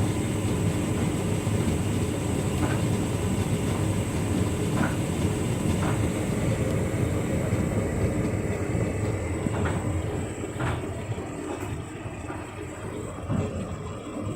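Hotpoint Ultima S-Line tumble dryer running its cool tumble: a steady rumble of the turning drum and fan, with a few light knocks from the load tumbling. The running sound gets quieter about ten seconds in.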